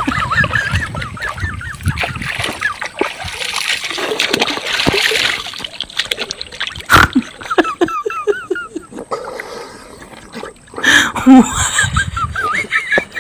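Pond water splashing and sloshing as a man wades waist-deep and works his hands through it. The splashing comes in uneven bursts, heaviest a few seconds in and again near the end.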